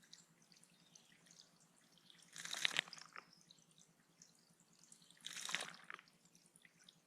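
A small bird bathing in shallow pond water, splashing in two short bursts about three seconds apart, over a faint steady drip of water.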